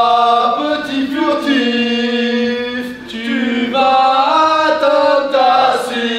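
Choir music: several voices singing long held notes in harmony, moving from chord to chord about every second, with a short break about three seconds in.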